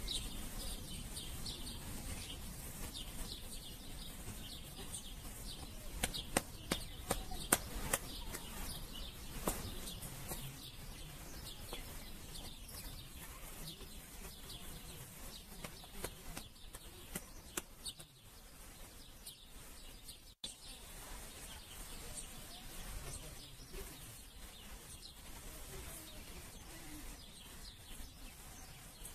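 Small birds chirping in the background, with a few sharp clicks about six to ten seconds in and again a little past the middle.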